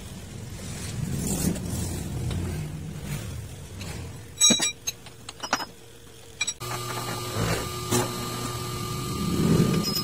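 Sharp metal-on-metal clanks with a brief ring, the loudest about four and a half seconds in, as parts of a metal lathe are handled. Then a steady machine hum starts abruptly, with a couple of light knocks.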